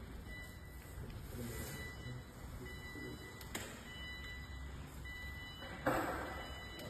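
Electric wheelchair's hub motors running, a faint thin whine coming and going as it drives and turns, with a short louder rush of noise near the end.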